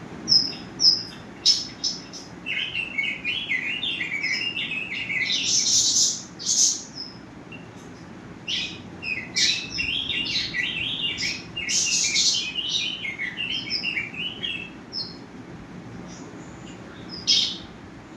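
Small birds chirping and twittering: two long bouts of rapid chirps with single high calls in between.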